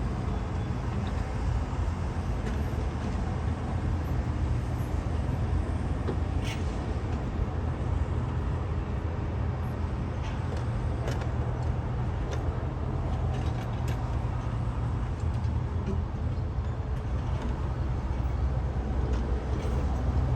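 JCB backhoe loader's diesel engine running steadily under work, with a few faint clicks or knocks.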